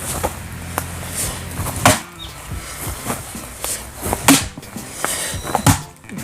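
Fiskars axe splitting oak firewood: three heavy strikes into the wood about two, four and a half and almost six seconds in, with lighter knocks of wood between.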